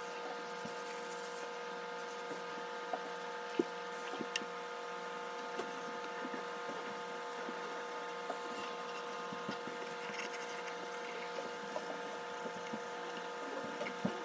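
Small scattered pops and crackles of water on a maple and mahogany semi-hollow guitar body during water popping, over a steady humming tone.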